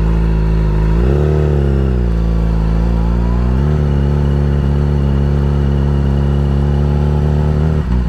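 2020 Yamaha R6's inline-four engine, fitted with a LeoVince exhaust, pulling the bike at low speed: the revs rise and fall briefly about a second in, climb again after about three and a half seconds and hold steady, then drop suddenly near the end.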